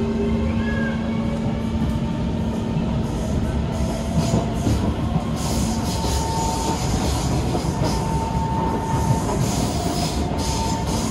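Cabin noise inside a Kawasaki C151 metro train running along the track: a steady rumble of wheels on rail with a low hum and an on-and-off higher whine. From about three seconds in come rougher stretches of hiss and clatter.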